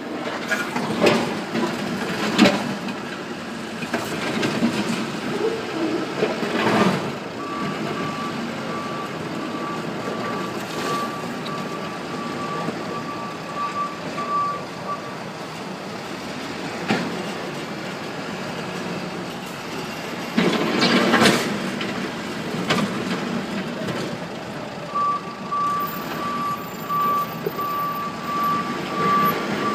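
Backhoe running under load, with several loud knocks and bangs. Its reversing alarm beeps from about seven seconds in to about fifteen, and again near the end.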